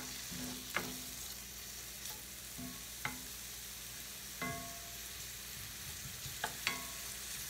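Diced onion sizzling steadily in olive oil in a cast iron skillet while a spatula stirs it, knocking against the pan about five times, some knocks leaving a brief ring.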